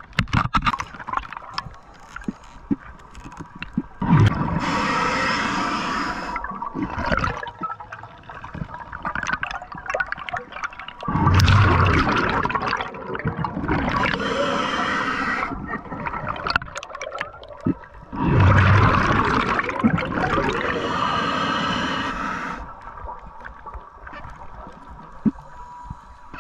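Scuba diver breathing through a regulator underwater: about five bursts of exhaled bubbles rushing and gurgling past the camera, a few seconds apart, with quieter stretches between. A faint steady tone sits underneath.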